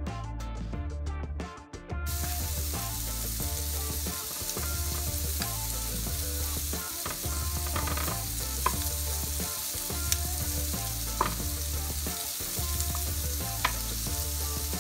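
Chicken pieces sizzling as they fry in a hot grill pan, the sizzle coming in about two seconds in and carrying on steadily, with a few sharp ticks. Background music with a repeating bass line plays underneath.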